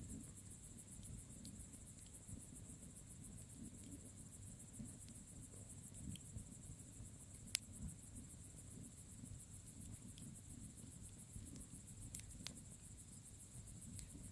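Bonfire burning with a low, faint flickering rumble and scattered sharp crackles, one louder pop about halfway through and two more near the end. Crickets trill steadily at a high pitch.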